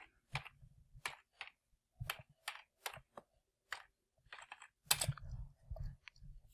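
Computer keyboard typing: separate keystrokes a few times a second, with a quicker run of keys about five seconds in.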